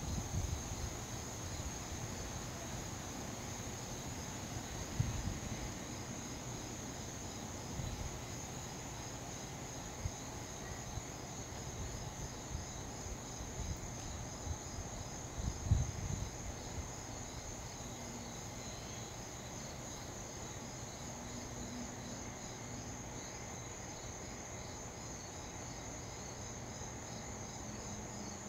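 Steady, high-pitched insect chorus with a row of even, pulsing chirps just beneath it. A few low thumps, the loudest a little past halfway.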